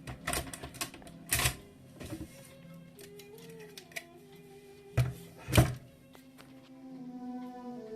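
Alpina manual typewriter clacking with a handful of scattered mechanical strokes. A few light clicks come in the first second, then single strokes spaced out, and the two loudest clacks come about five seconds in. Slow background string music sustains underneath.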